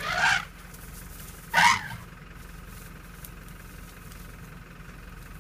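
African elephant calf giving two short, loud trumpet blasts about a second and a half apart, in a threat display at a vehicle, over the steady hum of an idling vehicle engine.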